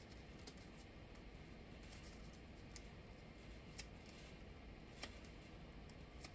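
Near silence with a few faint clicks and taps in the second half, from a cardboard advent calendar door being handled and opened by hand.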